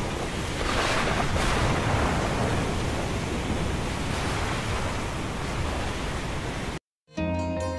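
Steady rushing noise of a stormy sea, wind and waves, swelling a little about a second in. It cuts off suddenly near the end, and after a moment's silence soft plucked-string music begins.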